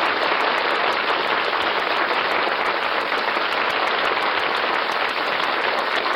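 Audience applauding steadily, a dense even clapping heard on an old radio broadcast recording with a dulled top end.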